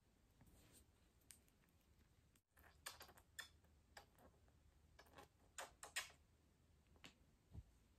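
Faint, scattered small clicks and taps from handling a glass dropper bottle of serum, with near silence between them; a few clicks come close together about three seconds in and again near six seconds.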